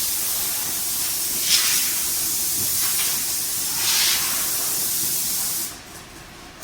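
Powder carton packing machine running with a steady high hiss, swelling into two louder hissing bursts about a second and a half in and again near four seconds; the hiss cuts off sharply shortly before the end.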